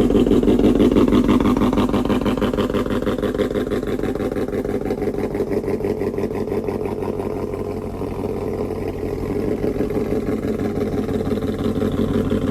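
GMC Sierra's V8, fitted with a BTR Stage 4 camshaft and equal-length headers, idling with a fast, even, choppy exhaust pulse.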